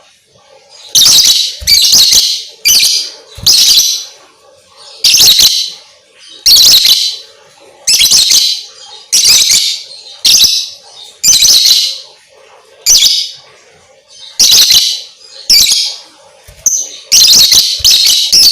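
Lovebird chirping in a rapid series of loud, shrill bursts, each about half a second long, coming roughly once a second with brief pauses.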